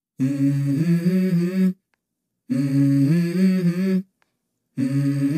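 Background music: the intro of a song, three short hummed vocal phrases of about a second and a half each, with brief gaps between them.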